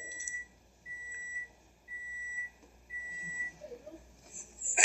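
Electronic beeping: four steady, high beeps about a second apart. A short, loud noise comes right at the end.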